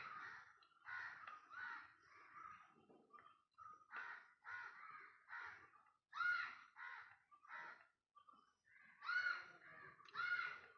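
Faint bird calls repeating about once a second, with short pauses between them.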